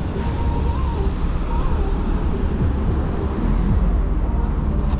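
Ride noise from an e-bike moving through city traffic: a steady low rumble that grows heavier about three and a half seconds in, with a hiss of street noise above it.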